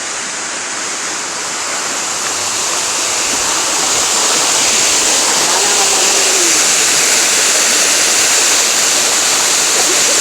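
Waterfall rushing: a steady, dense roar of falling water that grows louder over the first few seconds and then holds.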